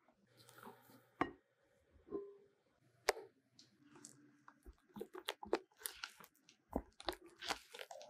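Silicone spatula folding stiff meringue into egg-yolk batter in a glass bowl: soft wet squelching with sharp clicks and taps, two single ones early and a quick run of them in the second half.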